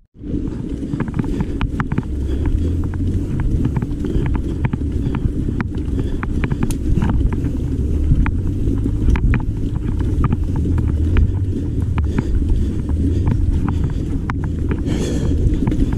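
Wind rumbling on the microphone of a mountain bike being ridden over a rough, stony trail, with many sharp clicks and rattles from the bike and its tyres throughout.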